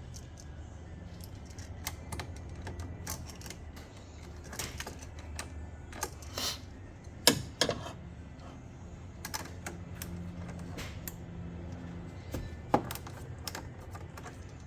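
An adjustable wrench clicking and clinking irregularly against a car battery's terminal clamp and nut as it is worked loose, with two louder metal knocks, about seven seconds in and near the end.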